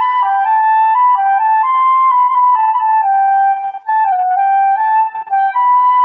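Music: a solo flute playing a melody that moves up and down in small steps, with brief breaks about four and five seconds in.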